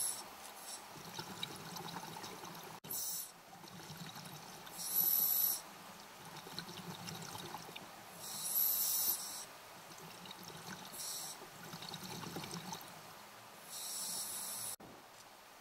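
A scuba diver breathing through a regulator underwater: a short hissing rush about every three seconds, five times, over a low steady bubbling wash.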